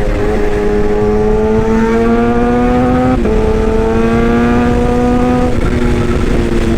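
Excavator running: a steady engine rumble with a pitched whine that slowly rises, then drops suddenly about three seconds in and again near the end, as the hydraulic load changes.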